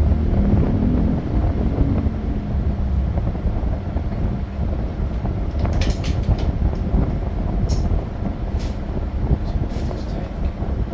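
Steady low vehicle rumble, like a motorbike or vehicle running on the road, with a few short clicks in the second half.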